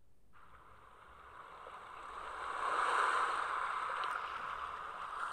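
A steady rushing, water-like noise fades in just after the start, swells over the next few seconds, then holds steady.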